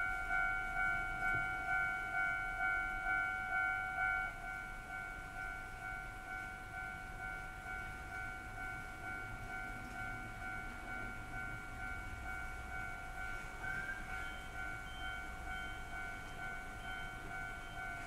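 Japanese railway level-crossing alarm ringing a steady clanging tone about twice a second, warning that a train is coming. It drops noticeably in loudness about four seconds in and keeps ringing more softly.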